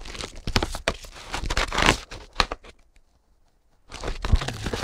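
Brown paper and cardboard packaging being torn and crumpled by hand, a run of crinkling rips. It stops for about a second past the middle, then the rustling starts again.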